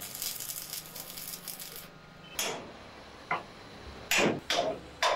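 Water poured from a plastic bottle splashing onto a rusty steel belt pulley, then hammer blows on the pulley hub: two single knocks, then a quicker run of louder metallic strikes near the end.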